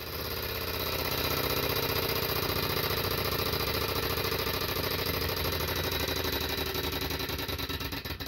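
Small twin-cylinder Stirling engine with glass tubes running with a steady rapid mechanical clatter from its flywheel and linkage. The clatter dies away near the end as the engine coasts to a stop, its burner flames blown out.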